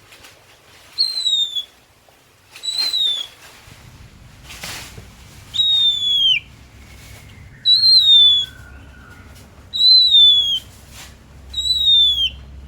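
Oriental magpie-robin (kacer) singing a series of six loud, clear whistled notes, each slightly falling at its end, repeated about every two seconds.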